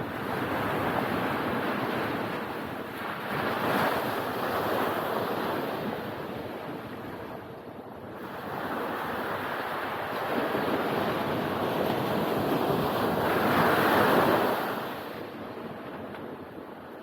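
Ocean surf breaking and washing up a beach, a steady rush that swells and ebbs in slow surges, loudest about four seconds in and again near fourteen seconds.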